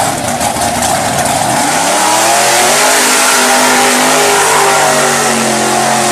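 Monster mud truck's engine revving hard as the truck launches down the mud pit: the pitch climbs steeply about a second and a half in, then holds at high revs.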